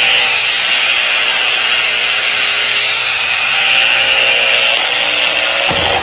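Makita angle grinder running flat out with a steady high whine while its motor overheats and burns, smoke pouring from the housing. The sound shifts lower near the end.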